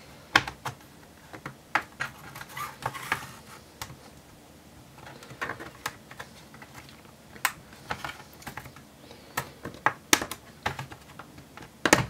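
Irregular sharp plastic clicks and short scrapes as a plastic pry tool works round the edge of a laptop's base panel, snapping its retaining clips free. The loudest clicks come in the second half, with a sharp one right at the end.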